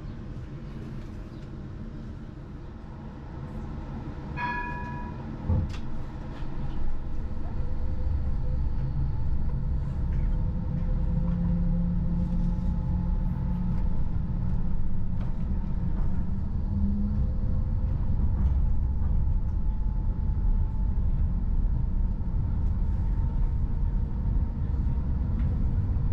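Electric tram, a Bombardier Flexity Classic, heard from inside the cab end: a short beeping chime about four seconds in and a clunk, then the tram pulls away, the low rumble of wheels on rails growing louder under a steady electric motor whine.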